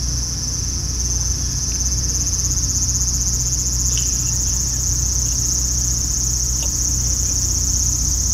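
Cicadas in the trees, a loud, steady, high-pitched buzz with a fine pulsing texture, over a steady low hum.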